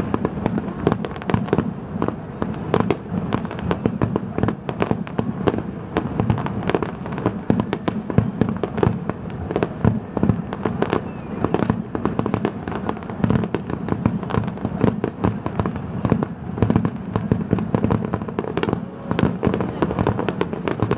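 Aerial firework shells bursting in rapid succession, a dense, unbroken run of sharp bangs and pops with no pause.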